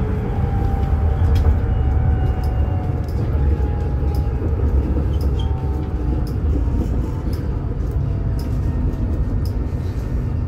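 Heard from inside a moving vehicle: a steady low rumble, with faint whining tones that slide slowly in pitch and scattered light clicks.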